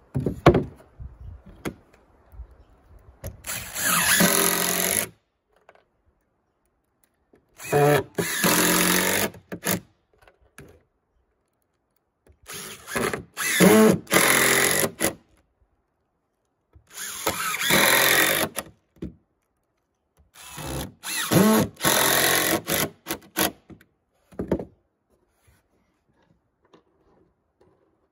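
DeWalt cordless impact driver driving wood screws through floorboards into the joists, in five runs of about two seconds each, a few seconds apart.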